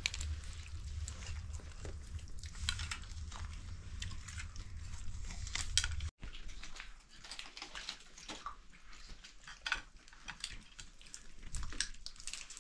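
Children eating at a floor spread of oranges and nuts: irregular small crunches, bites and clicks of food and plates.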